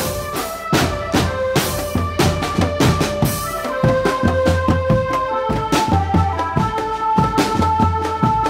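Indonesian street drumband playing: bass drums and multi-tom tenor drums struck with sticks in a dense, driving rhythm, with an electronic keyboard carrying a melody of held notes over the drums.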